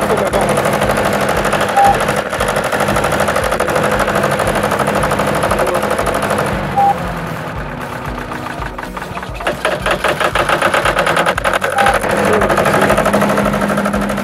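Generator engine running steadily, with a short high beep about every five seconds.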